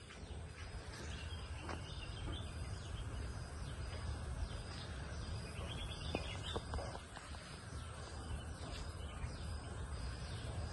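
Open-air park ambience: a steady background hum and rush of noise with faint bird chirps now and then.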